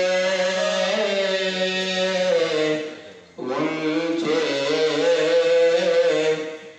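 A man reciting an Urdu naat in a melodic chanting style, with long held, wavering notes in two phrases and a short break for breath a little before the middle.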